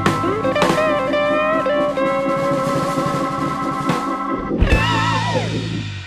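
Rock-style background music: a guitar lead line with wavering, bending notes over chords and a drum kit, ending near the close with a downward bend as the track dies away.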